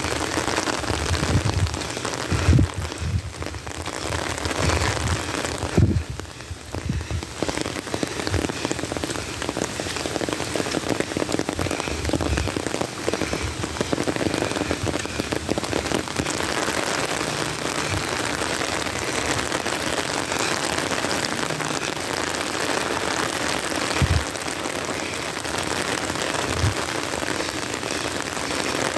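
Heavy hurricane rain pouring steadily, a dense even hiss of falling water, broken a few times by short dull thumps.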